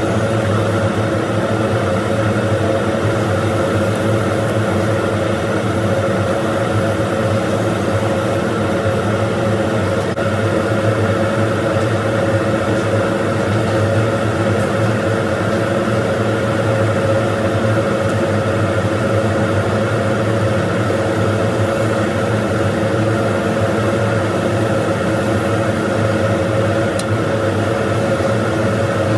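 TIG welding machine running while welding steel, a steady electrical buzz and hum that holds at one level without a break.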